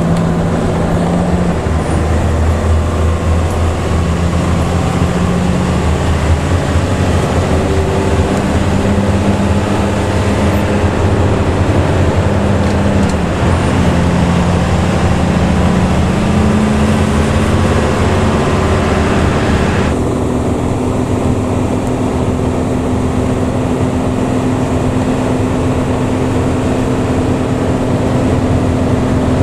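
Luragung Jaya intercity bus's diesel engine and growling "ngorok" exhaust running under way, its note rising and falling as the bus changes speed. About two-thirds of the way through the sound changes abruptly and settles into a steadier drone.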